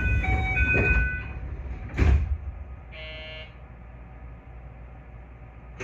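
A short run of electronic chime notes, then a heavy thud about two seconds in as the train's sliding doors close, and a brief buzz a second later.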